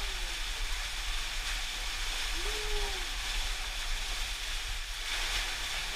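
Steady rush of water from a small waterfall pouring into a pool, heard as an even hiss. A brief voice call rises and falls about two and a half seconds in.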